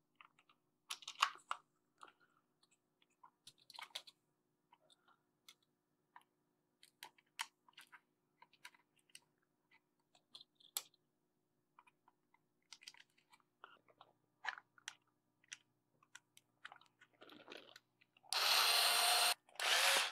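Hands handling 3D-printed plastic housing parts and small M4 screws: scattered light clicks, knocks and scrapes, with a louder burst of harsh noise lasting about two seconds near the end.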